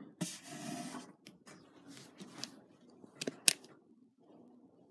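Rubbing and scraping handling noise from a phone being moved and turned close to the microphone, with a few sharp clicks a little past three seconds in.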